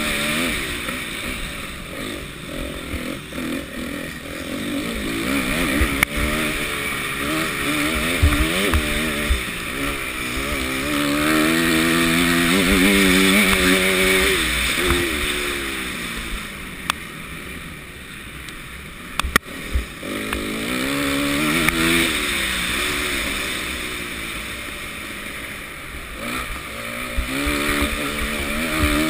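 Motocross bike engine revving hard and dropping back again and again as the rider accelerates, shifts and slows for corners, with wind rushing over the helmet-mounted microphone. A few sharp knocks, from bumps or landings, come about six, eight and nineteen seconds in.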